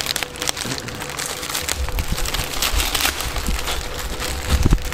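Thin clear plastic wrapping film crinkling and rustling in irregular crackles as it is handled and pulled off new plastic ATV body panels. A low rumble joins about two seconds in.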